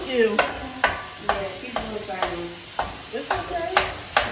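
Ground beef sizzling in a skillet while a spatula stirs it, scraping and knocking against the pan about twice a second.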